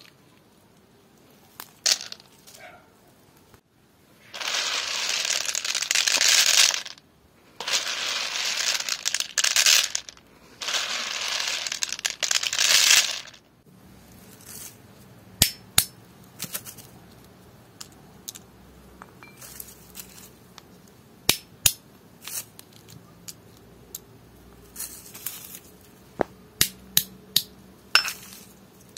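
Three long bursts of loud rustling and crackling as hazelnuts are handled and stripped from their dry leafy husks. About halfway through this gives way to sharp, separate cracks, some in quick pairs and most of them near the end, as hazelnut shells are struck with a hammer on a small iron plate.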